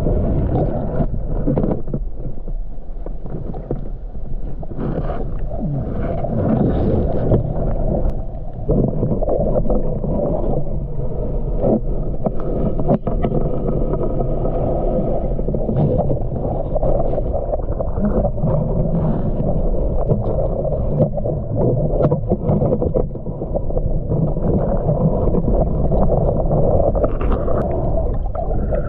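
Muffled underwater noise picked up by a submerged camera: a steady low rumble of moving water with many small clicks and knocks through it.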